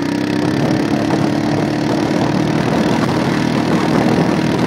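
Quad bike engine running at a steady pitch while towing a sledge across snow, with a rough rumble underneath.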